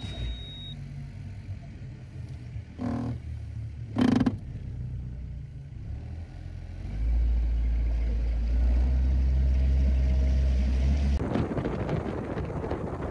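Bass boat's outboard motor running at low speed with two sharp knocks, then throttling up at about 7 s to a loud low drone. From about 11 s, wind and water rush take over as the boat gets under way.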